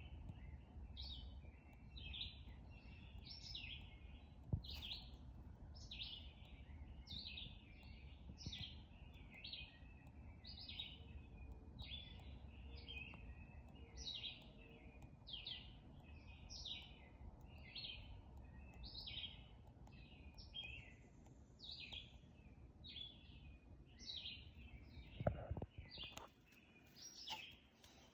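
Faint bird chirping: short high chirps repeated steadily, about one to two a second, with a couple of brief low thumps.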